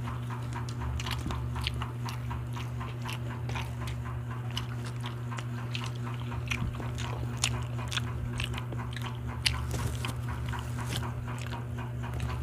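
Close-up mukbang eating: several people chewing grilled barbecue skewers and rice, with many short mouth clicks and smacks, over a steady low hum.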